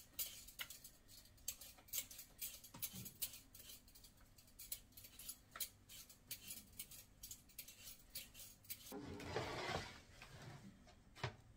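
Potatoes being peeled by hand: a quiet run of short, irregular scraping clicks from the blade on the potato skin. About nine seconds in there is a louder rush of noise lasting a second or so, then a single sharp click.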